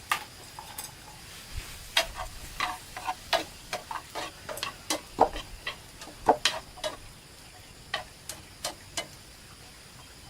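Irregular clinks and knocks of a utensil against cookware, some with a short metallic ring, coming thickly for several seconds and thinning out near the end.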